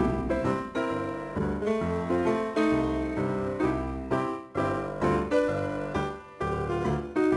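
Background piano music: a melody of separate struck notes that ring and fade, about two notes a second.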